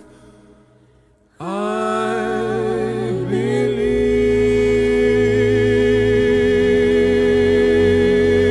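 Background music: a sung piece with a quavering voice fades out, and after a short quiet gap a new piece begins. Its notes slide up and then settle into long held tones over a low drone.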